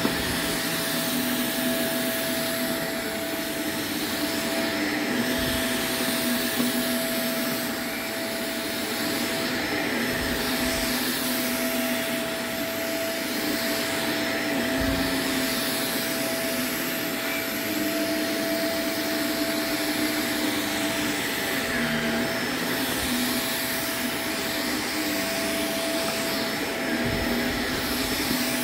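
Shark upright vacuum cleaner running steadily while it is worked across a shaggy rug: a constant motor whine, with a lower hum that steps up and down in pitch every couple of seconds.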